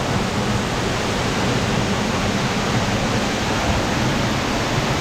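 Waterfall: water falling and rushing steadily, a constant even roar with no breaks.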